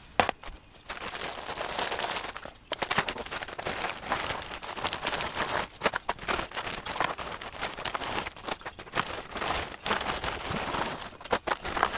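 Plastic zip-top bag crinkling and dry, crunchy freeze-dried macaroni and cheese pieces crackling as they are broken up and poured into a mylar pouch: a steady busy crackle of many small clicks.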